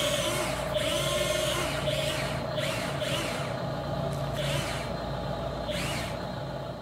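Radio-controlled toy Volvo excavator driving on its tracks. Its small electric drive motors give a steady whine, with a higher sound that rises and falls about once a second. The sound fades near the end.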